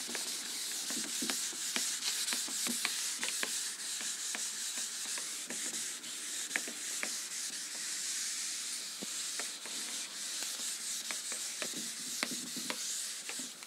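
Hand-held whiteboard eraser wiping marker off a whiteboard: a steady scratchy rubbing, with scattered light knocks of the eraser against the board.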